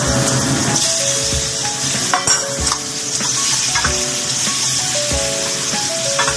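Minced garlic frying in hot cooking oil in a pan, a steady sizzle, with a few quick clinks of a utensil stirring it about two seconds in.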